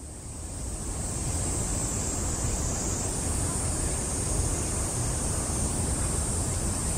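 Steady summer garden ambience: a continuous high-pitched chorus of cicadas over a low rumble of wind on the microphone and distant city traffic, fading in over the first second.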